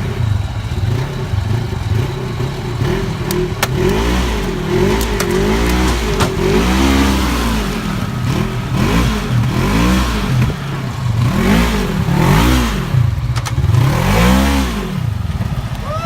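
A vehicle engine revving up and down over and over, its pitch rising and falling every second or two, with a few sharp clanks.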